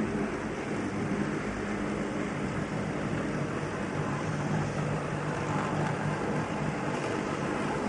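HO-scale model freight train, led by Athearn Genesis EMD SD70 diesel locomotives, running along the track with a steady hum.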